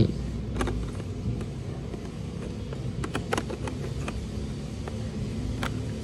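A few scattered plastic clicks as a vacuum attachment is fitted onto a handheld mini jet fan, over a low steady rumble in the background.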